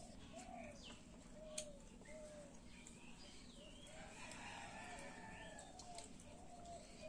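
Faint, repeated short clucking calls of domestic chickens, with a few higher bird chirps among them. One light sharp click about one and a half seconds in.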